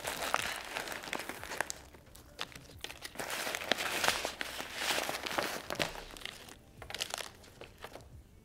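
Plastic packets crinkling and a nylon zippered pouch rustling as hands rummage through a small first aid kit, in irregular bursts with a few sharp clicks.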